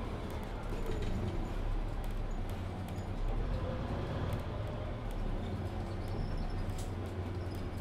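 Cabin sound of a Mercedes-Benz Citaro C2 Ü Hybrid city bus standing still with its diesel engine idling: a steady low hum.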